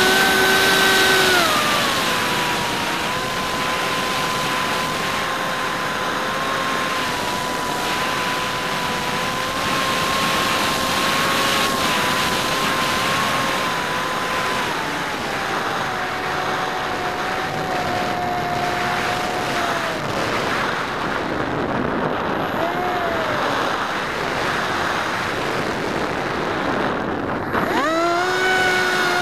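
Hymax 2700kv electric inrunner motor spinning a 6x4 APC propeller, heard from the plane's onboard camera as a steady whine over rushing wind. The pitch steps down about two seconds in and again about halfway, the motor then cuts out for several seconds of gliding with only wind noise apart from a short blip, and it is throttled up sharply near the end.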